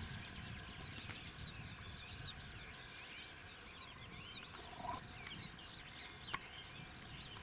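Faint chorus of small songbirds chirping and warbling continuously, with a few faint clicks.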